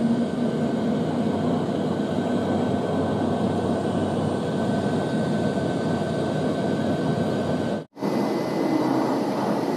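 Steady cabin drone of a turboprop airliner in flight, its propeller and engine noise heard from inside the cabin, with a thin steady whine over it. The sound cuts out for a moment about eight seconds in, then resumes the same.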